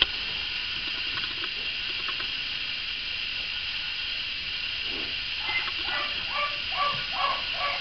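Steady background hiss in a barn, with a few faint, short pitched calls in the last three seconds.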